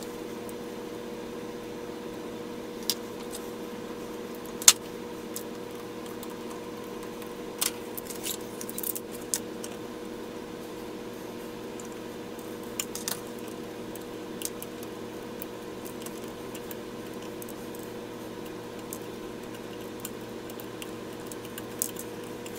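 Transformer soldering gun humming steadily with its trigger held, heating a copper terminal bar to melt out old solder. Needle-nose pliers click and scrape on the metal terminal now and then, the sharpest click about five seconds in.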